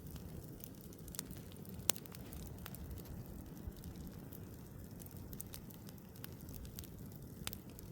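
Bonfire crackling: scattered sharp pops over a low, steady rumble, with the loudest pop about two seconds in.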